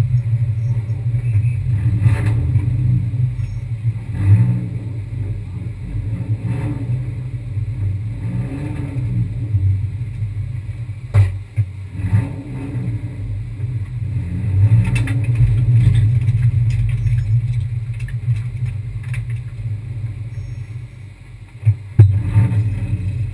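Kia Picanto race car driving, a steady low engine and road drone that eases off toward the end, followed by two sharp knocks.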